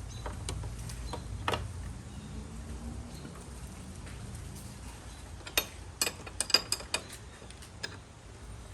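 Tools clicking and clinking against metal: a few single clicks in the first couple of seconds, then a quick run of about six clicks between five and a half and seven seconds in, and one more near the end.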